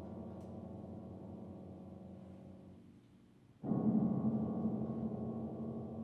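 A deep, gong-like struck sound rings on with many overtones and slowly dies away. About three and a half seconds in, a new loud strike starts another long ring.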